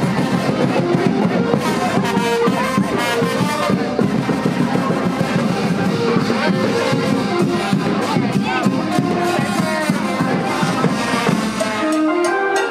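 Loud band music: a stepping melody over dense, steady drumming, with crowd voices underneath.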